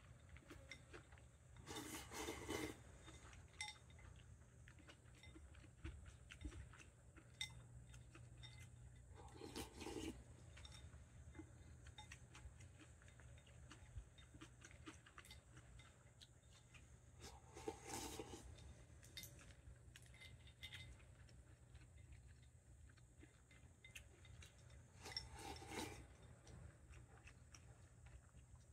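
Quiet eating sounds: wooden chopsticks clicking and scraping against a glass bowl of cold ochazuke, with four louder bursts of scraping and eating noise about eight seconds apart. A low, steady hum from an electric fan runs underneath.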